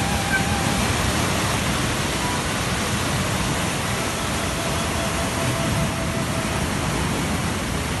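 River rapids rushing through a rocky gorge: a steady wash of water noise, with a few faint held whistle-like tones over it.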